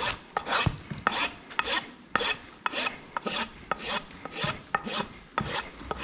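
Steel hoof rasp filing across a pony's hoof in steady back-and-forth strokes, about two a second: levelling the hoof during a barefoot trim.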